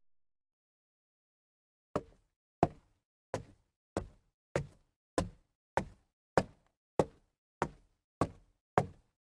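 Slow, steady knocking: about a dozen sharp knocks evenly spaced a little over half a second apart, starting about two seconds in.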